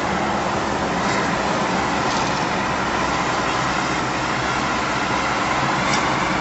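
Steady road and engine noise inside the cabin of a moving vehicle driving in highway traffic.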